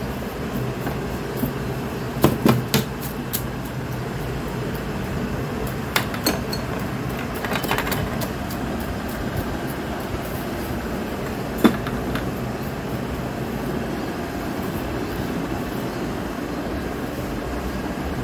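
Cosmetic bottles and jars being moved about and set down on a glass-topped dressing table during dusting: a few sharp clicks and knocks, several together about two seconds in and the sharpest about two-thirds through, over a steady background hum.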